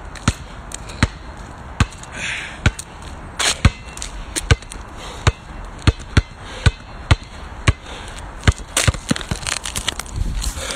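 A basketball being dribbled on a tarmac court: a run of sharp bounces, about a second apart at first and coming faster from about halfway. Near the end there is a low rumble of the phone being handled.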